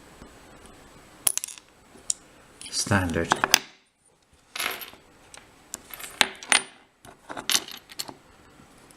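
Light metallic clicks and clinks in several short clusters, as the small pins and parts of a gutted Corbin euro cylinder lock are handled and set down.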